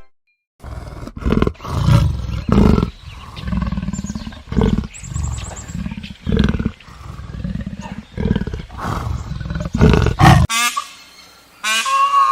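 Tiger roaring and growling in a series of deep calls. They stop about ten and a half seconds in, and a short, higher honking call of another animal starts near the end.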